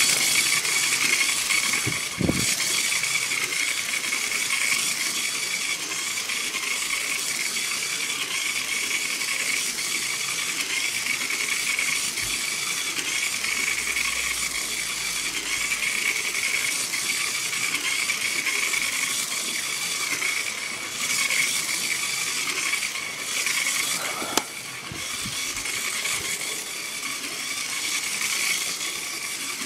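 Battery-powered Lego train running on plastic track: a steady electric-motor whine over the rattle of wheels and carriages, with a sharp knock about two seconds in and another near the end.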